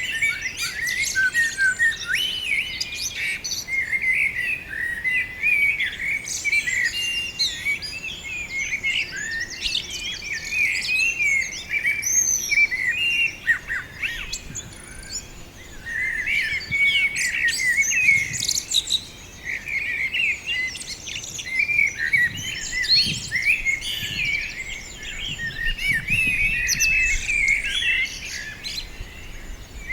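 Several small birds chirping and singing together in a dense, overlapping chatter of short high notes, easing off briefly about halfway through before picking up again.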